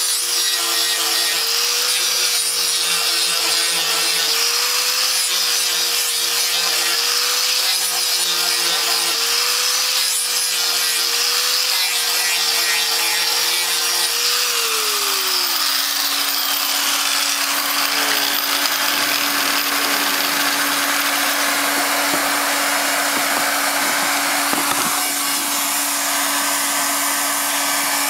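Angle grinder with an abrasive disc sanding HDPE geomembrane liner, its motor whine wavering as it is pressed into the sheet, roughening the surface ready for extrusion welding. About halfway through the grinder winds down. The steady blowing hiss and hum of a handheld hot-air welding gun carries on.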